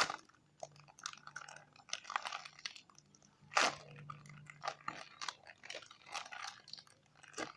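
Hands handling squishy toys, making irregular rustling and crackling with scattered clicks and one louder crackle about three and a half seconds in, over a faint steady low hum.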